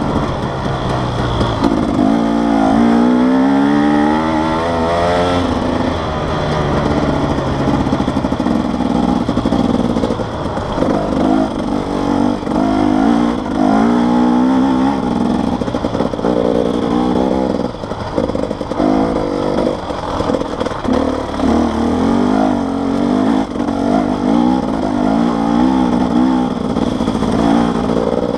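Enduro dirt-bike engine being ridden, revving up and down as the throttle opens and closes, its pitch rising and falling every second or two.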